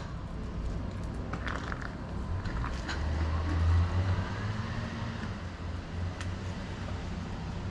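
A road vehicle passing: a low rumble that swells to a peak about four seconds in and then fades, with a few faint clicks.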